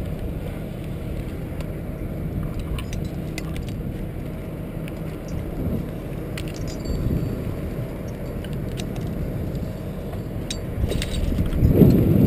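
Steady low rumble with scattered light metallic clinks of carabiners and rigging hardware being handled, growing louder near the end.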